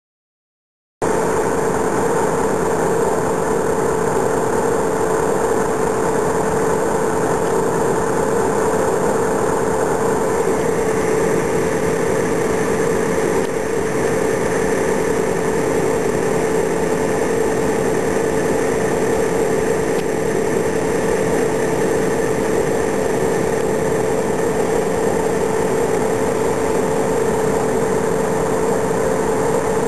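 SNCF BB 66000 diesel-electric locomotive idling and clagging, its engine giving a steady drone with a strong hum, starting about a second in.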